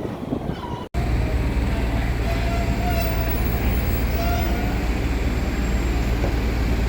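Steady low rumble of a running vehicle with faint thin squeals over it, starting abruptly about a second in.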